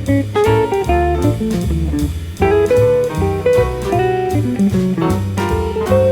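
Swing jazz played by a small band: an electric jazz guitar takes a quick-moving melodic solo over double bass and drum kit.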